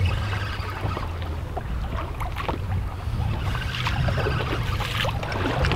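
Steady low hum of a boat on open water, with wind and water noise over it and a few faint scattered clicks.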